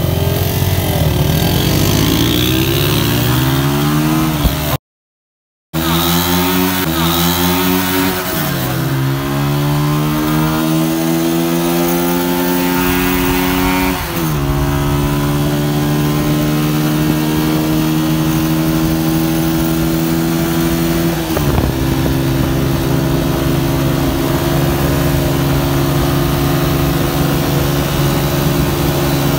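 Honda CG 125 motorcycle's single-cylinder four-stroke engine accelerating hard from a standing start. The pitch climbs and drops sharply at each gear change, three times, then holds steady at speed for the last several seconds. The sound cuts out briefly about five seconds in.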